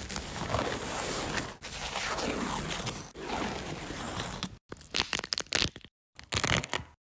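Thin skin of a boiled potato being peeled off with a metal pick: a continuous wet tearing and scraping. About four and a half seconds in it changes to short, broken cracks and crunches as the top shell is pried off a raw crab.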